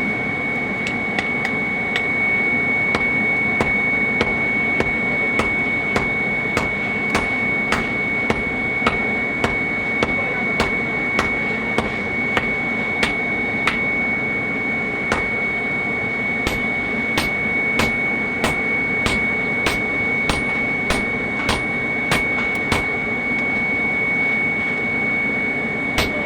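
Blacksmith's hammer striking hot metal on an anvil in a steady rhythm, roughly two blows a second. A steady whirring noise with a constant high-pitched whine runs underneath.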